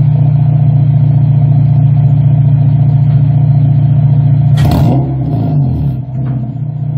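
2006 Honda Civic Si's K20 four-cylinder engine through a DNA Motoring full-race catback exhaust, held at a steady high rev against a two-step launch limiter, with a fine stuttering buzz. About four and a half seconds in a sharp pop cracks out as the revs drop and waver, then the engine climbs back to the same held note near the end.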